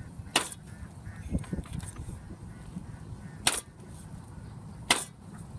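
Meat cleaver chopping chicken on a round wooden chopping block: three sharp chops, one just after the start and two more near the end about a second and a half apart.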